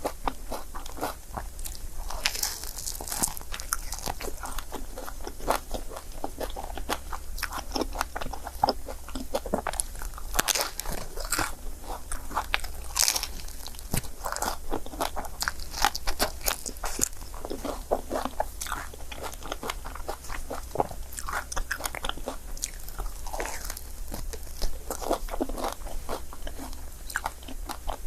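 Close-miked biting and chewing of a crepe: a dense, irregular run of small crunches and crisp mouth clicks.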